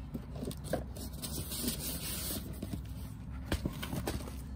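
Rummaging noise: rustling and scattered light clicks as clothing and small items are moved about in a black plastic trash bag, with a sweater sleeve brushing over the microphone. A sharper click comes about three and a half seconds in. Under it all is a steady low background hum.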